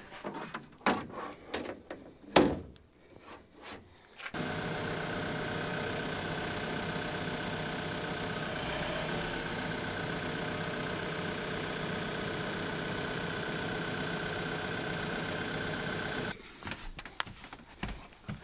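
A few sharp knocks and clatters, then a tractor engine running at a steady speed for about twelve seconds, starting and stopping abruptly. Scattered knocks follow near the end.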